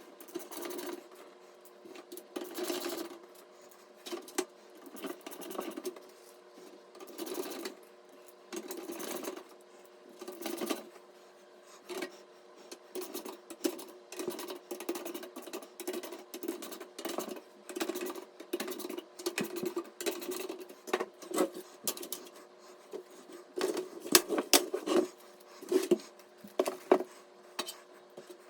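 Hands assembling PC components: irregular clicks, scrapes and rubbing of parts being handled and fitted, with a cluster of sharper clicks near the end, over a steady faint hum.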